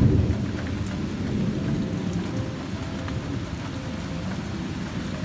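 Heavy rain falling steadily, with a low rumble of thunder at the start that dies away within about a second.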